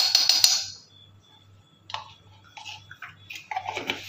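Ghee sizzling and crackling as it melts in a hot iron kadai, with a spoon scraping it across the pan. A loud, busy burst in the first second, then a few shorter, quieter spells.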